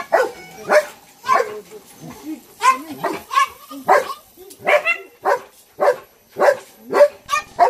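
A dog barking over and over in a steady, even run, a little under two barks a second.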